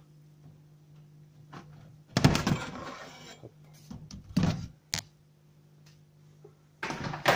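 A clear plastic snake tub being handled and slid open: a knock and about a second of plastic scraping about two seconds in, then shorter knocks, with another knock and scrape near the end.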